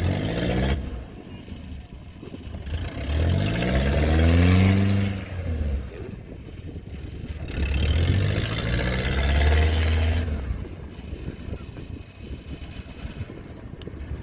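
Kubota DC70 combine harvester's diesel engine revving up and dropping back twice, running steadily in between.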